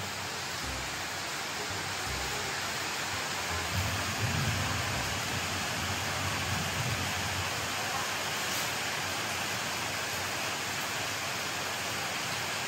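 Steady, even rushing hiss, with a faint low rumble about four seconds in.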